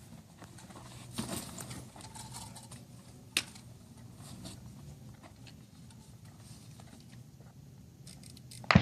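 Light metallic clicks and rattles of rifle and gear being handled, with one sharp click a few seconds in, then a single loud precision-rifle shot near the end.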